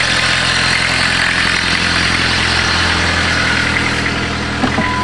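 Volkswagen diesel engine idling steadily.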